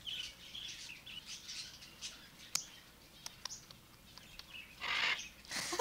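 Cockatoo chirping softly in short, high twitters while being petted, with a louder, rasping call about five seconds in.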